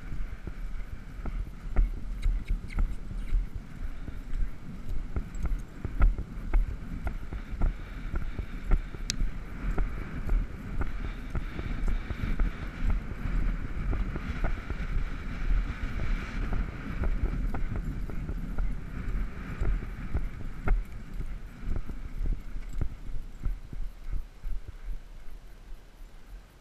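Hoofbeats of a ridden horse moving across grass, a steady run of irregular low thumps with wind buffeting the microphone. A faint hiss swells in the middle and fades, and the sound eases off near the end.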